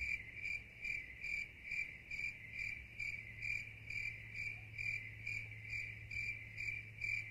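Cricket chirping sound effect: one cricket's even, high-pitched chirps, a little over two a second, over a faint steady hum.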